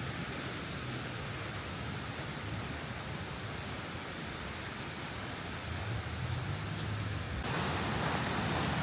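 River water rushing over rocky shoals, swollen high with muddy floodwater, as a steady even rush. It grows brighter and a little louder about seven and a half seconds in.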